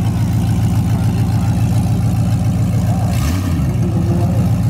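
Drag-race pickup's engine idling loud and choppy as the truck creeps forward, with a brief dip in the note about three seconds in.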